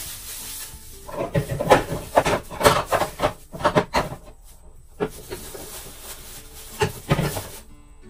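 Plastic produce bags rustling and crinkling, with items knocking against fridge shelves and door bins, in clusters from about a second in and again near the end, over background music.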